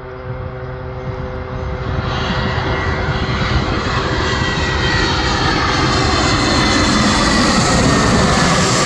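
Airbus A320neo's Pratt & Whitney geared turbofan engines on final approach, growing steadily louder as the airliner comes closer. The engines give a steady whine, and its tones slide down in pitch in the second half as the aircraft passes close by.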